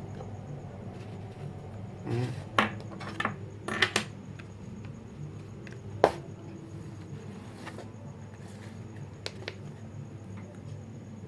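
A Samsung Galaxy M31 phone box and its packaging being handled during unboxing: a run of rustles and small clicks about two to four seconds in, a single sharp click about six seconds in, then a few faint ticks.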